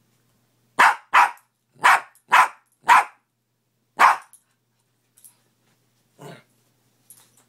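A dog barking: six loud, sharp barks in quick succession over about three seconds, then one quieter bark a couple of seconds later.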